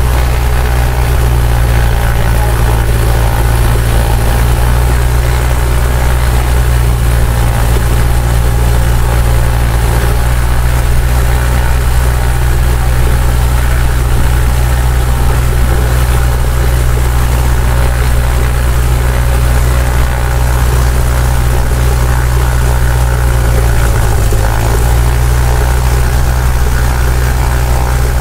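Single-engine Cessna's piston engine and propeller running at low power, heard from inside the cabin as a loud, steady low drone. The pitch dips briefly a little before the end.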